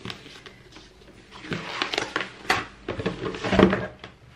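Cardboard box and packaging being handled and opened: scattered rustles and scrapes, with a thump about three and a half seconds in.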